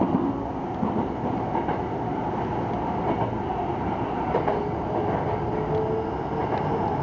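Hankyu 9000 series electric train running on a gentle upgrade in typhoon wind and rain, with steady running noise, occasional clicks of the wheels over rail joints and a faint steady motor tone. The wheels hold their grip without slipping.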